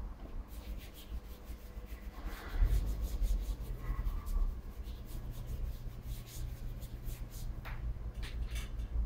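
Rubber tyre rubbing and scraping against a wheel rim as it is worked by hand onto a tyre-changing machine, in irregular strokes. About two and a half seconds in, a steady low machine hum starts and carries on.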